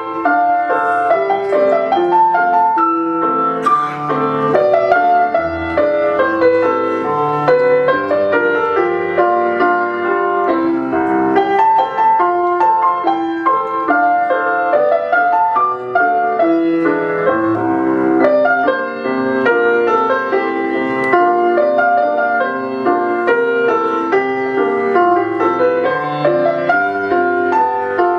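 Piano music: a continuous flow of notes with no pauses.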